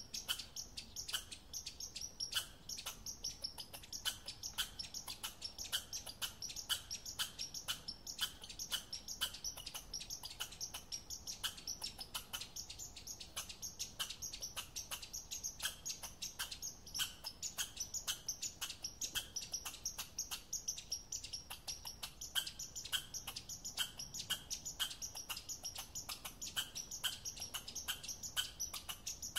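Red squirrel calling in a steady series of short, sharp high chirps, about three a second, with no pause.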